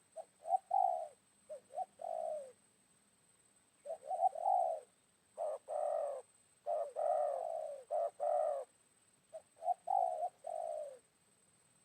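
Spotted dove cooing: repeated phrases of short, rising-and-falling coos, grouped in runs with brief pauses between them.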